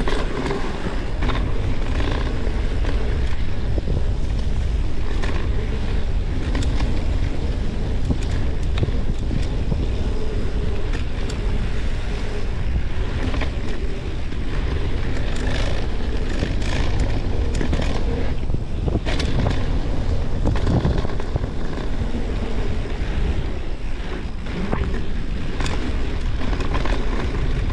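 Mountain bike riding fast down a dirt trail: wind buffeting the microphone in a steady rumble, knobby tyres on dirt, and frequent short knocks and rattles from the bike over bumps.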